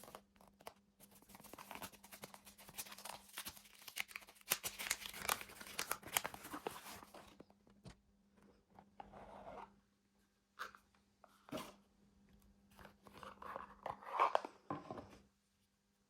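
Jewellery packaging being unwrapped and opened by hand: paper crinkling and tearing with many small clicks for about seven seconds, then a few shorter rustles and taps. A faint steady hum runs underneath.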